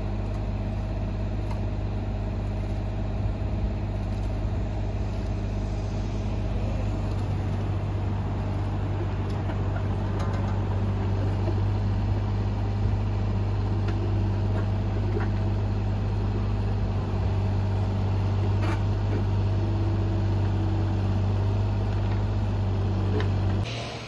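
Compact excavator's diesel engine running steadily at a constant speed, with a few faint clicks and scrapes on top. It cuts off suddenly just before the end.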